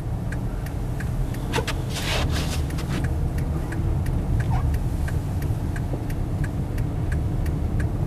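Car cabin noise while crawling on a snow-covered highway: a steady low road and engine rumble, with a regular light ticking about two to three times a second and a short hiss about two seconds in.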